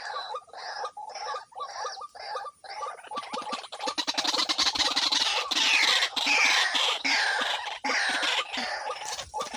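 White-breasted waterhen calling: a run of short repeated calls about two a second, then louder calls with falling notes in the second half.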